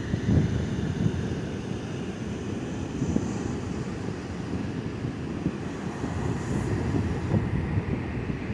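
Wind buffeting the microphone: a steady low rumble with small irregular thumps and no voice.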